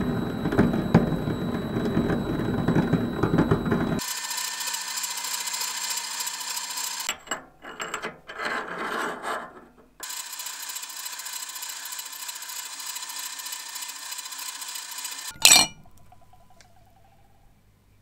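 Metal lathe single-point cutting a thread with a carbide threading insert: a dense scraping crackle of metal being cut. Then the lathe runs with a steady hiss and a held tone, with a few seconds of short broken scraping strokes and later a steady rasp as a file is held against the spinning shaft. One sharp loud clank about fifteen seconds in.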